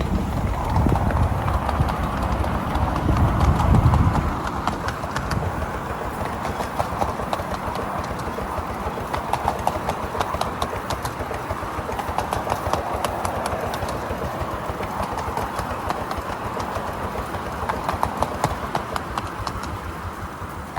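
Miniature railway train running along the track, its wheels clicking rapidly and unevenly over the rail joints, with a heavier low rumble for the first four seconds.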